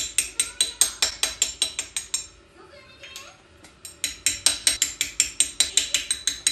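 Rapid light hammer taps, metal on metal with a ringing clink, driving new greased oil seals into a Toyota Beams 3S-GE engine. The taps come about six or seven a second in two runs, with a pause of about two seconds in the middle.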